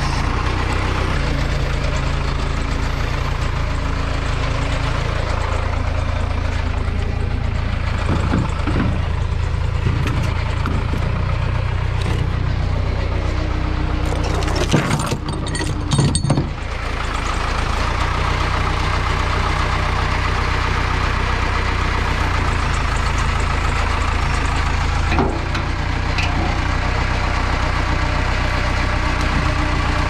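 An engine idling steadily, with a few knocks about fifteen to sixteen seconds in.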